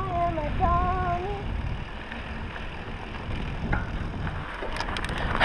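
Wind buffeting the camera microphone and tyres rolling over a dirt trail make a steady low rumble as a mountain bike rides along. Two short wavering squeaks sound in the first second or so, and a quick run of clicks and rattles comes near the end.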